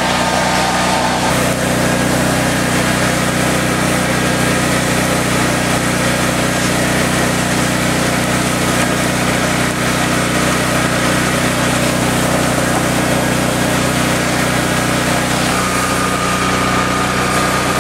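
A small engine running at a steady speed under a constant rushing hiss, while a coal forge fire burns hard. A faint higher whine joins near the end.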